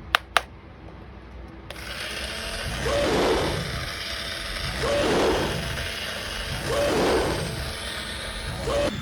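Two sharp clicks, then a battery-powered walking toy's small geared motor starts running, with a mechanical whirring that swells and fades about every two seconds.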